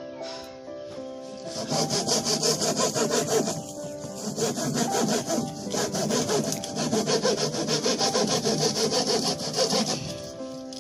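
Handsaw cutting through a thin wooden sheet in quick, even back-and-forth strokes, starting about a second and a half in, with a brief pause a couple of seconds later, and stopping shortly before the end.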